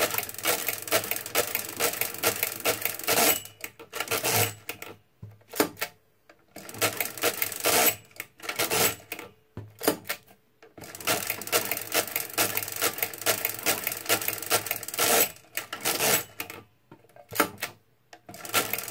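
Marchant XL pinwheel mechanical calculator being hand-cranked: a rapid clatter of gears and pinwheel teeth in several runs of turns, separated by short pauses as the carriage is shifted over, working a division by repeated subtraction and adding back.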